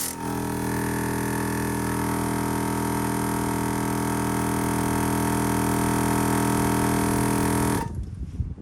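Ironman 4x4 Air Champ Pro 12-volt portable air compressor running steadily with a droning hum while inflating a tyre, then switched off, cutting out near the end.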